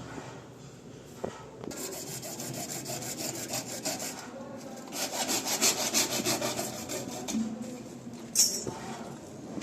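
Hand sawing in two bouts of quick, rasping back-and-forth strokes, the second louder, with a short pause between; a sharp knock follows near the end.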